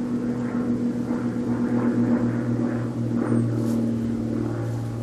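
Steady engine drone: a low hum with a higher tone above it, the upper tone shifting slightly in pitch about three and a half seconds in.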